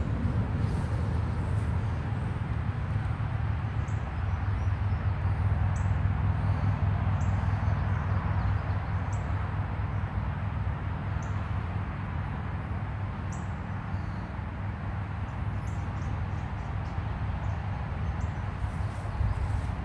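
Brief high bird chirps at irregular intervals over a steady low rumble.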